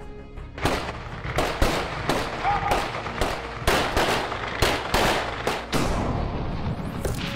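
Glock 17 9mm pistols firing: about fifteen shots at an uneven pace from several shooters, each shot trailed by a short echo, the last one near the end.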